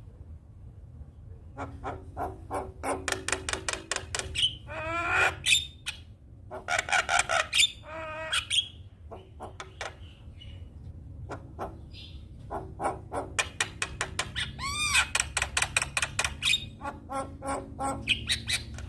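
Javan myna singing: bursts of rapid rattling clicks mixed with squeaky, warbling whistled notes, broken by a pause of a few seconds in the middle. Near the end of the second burst it gives one loud whistle that rises and falls. A faint low hum runs underneath.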